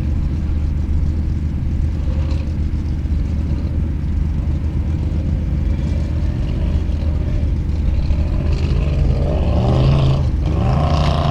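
Willys CJ5 off-road racer's engine running under a steady low rumble, revving up with a rising pitch about two-thirds of the way through, then holding high.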